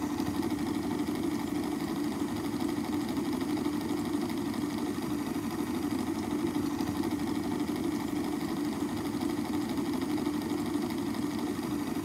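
Aquarium dosing pump's motor running with a steady hum while it pumps a manually triggered 10 ml dose.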